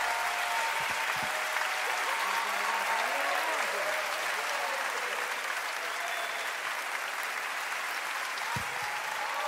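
Live concert audience applauding steadily, with a few faint voices among the clapping.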